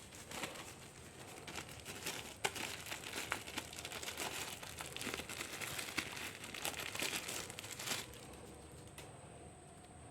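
Plastic packaging crinkling and rustling as it is handled and pulled open, a dense run of small crackles that dies down about eight seconds in.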